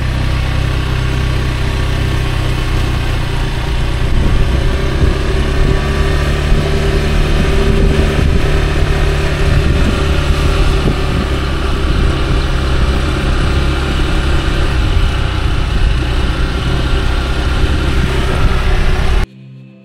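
Honda Click scooter's single-cylinder engine running steadily as it pulls a sidecar along, heard from the sidecar with road and wind noise. It cuts off suddenly near the end.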